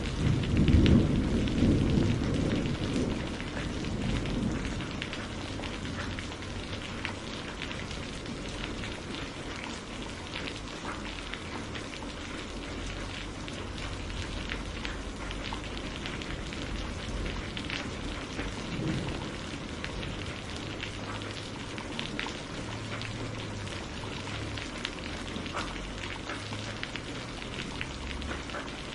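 Steady rain with a dense patter of drops. A low rumble of thunder swells in the first few seconds, and a fainter rumble comes about two-thirds of the way through.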